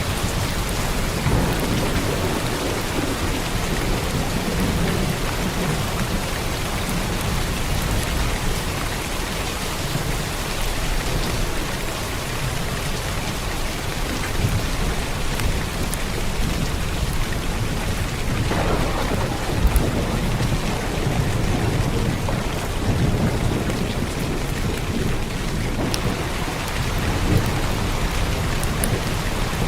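Steady heavy rain pattering on a roof under a thunderstorm, with low thunder rumbling throughout and a louder roll of thunder about two-thirds of the way through.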